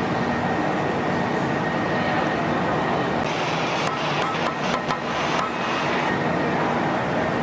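Steady, loud machinery noise with a thin constant whine. A cluster of sharp metallic clicks and knocks comes about three to five and a half seconds in.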